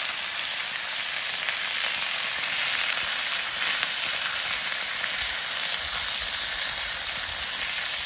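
Thin beef steaks sizzling steadily in hot oil in a metal frying pan over charcoal, searing to brown on both sides.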